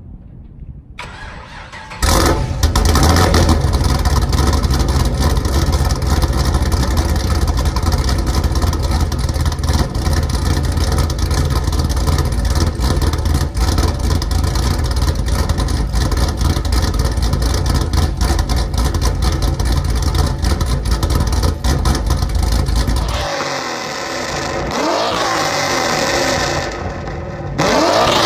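A cammed Chevrolet Camaro SS's 6.2-litre V8, fitted with a Corsa Sport exhaust, starting about two seconds in and then idling loudly with a choppy, uneven beat. Near the end it settles lower and is revved up and back down twice.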